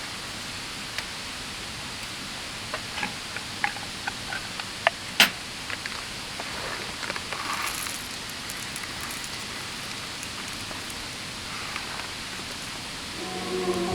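Steady rushing murmur of a river, with scattered light clicks and knocks, the sharpest about five seconds in. Soft music comes in near the end.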